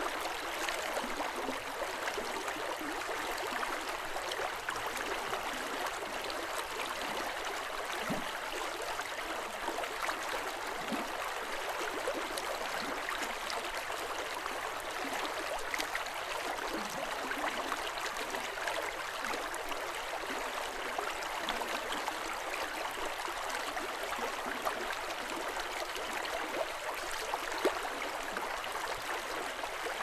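River water flowing: a steady, even rush of water, mostly in the middle and upper pitches, with no deep rumble.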